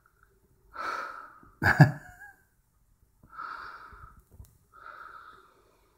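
A person breathing close to the microphone in four short noisy bursts, the loudest about two seconds in.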